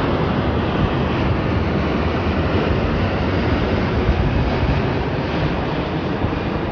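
Twin-engine jet airliner passing overhead, its engines a steady rushing noise that holds level throughout.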